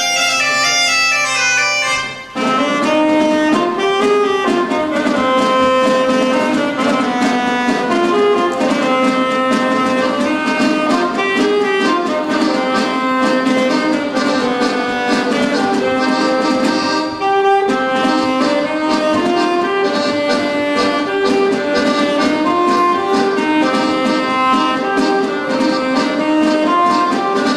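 Folk quartet of Galician gaita (bagpipe), alto saxophone, accordion and drum playing a pasodoble. The bagpipe drone holds underneath the tune. A short lead-in gives way to the full band about two seconds in, and there is a brief break a little past the middle.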